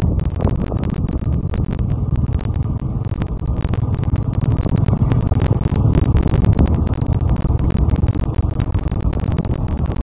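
Wind buffeting the microphone on a moving motorcycle, a loud steady low rush with vehicle noise under it and frequent brief gusts.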